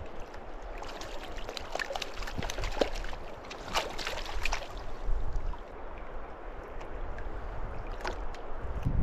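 Small rainbow trout thrashing in a landing net at the surface of shallow river water, a flurry of splashes between about one and five seconds in, over the steady flow of the river. Near the end a hand splashes into the water as the fish is released.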